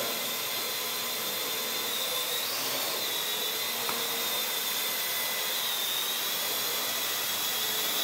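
Parrot AR.Drone quadcopter in flight: its four electric motors and propellers give a steady high whine over a hiss. The pitch wavers slightly as it is steered, rising briefly about two and a half seconds in.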